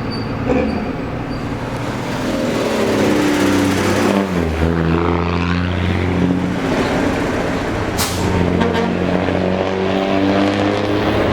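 A large bus diesel engine running under load as the bus pulls away, its pitch dropping through a gear change about four seconds in and then climbing again. A short hiss of air, as from the air brakes, comes about eight seconds in.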